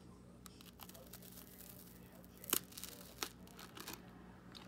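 Someone biting into and chewing crunchy toast: a run of sharp crackles, the loudest about two and a half seconds in.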